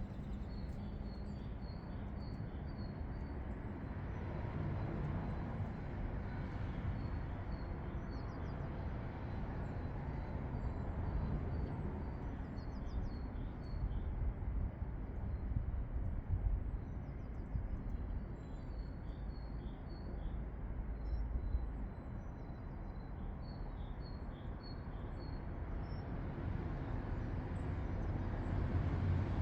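Small garden birds chirping in short, repeated high calls over a steady low background rumble.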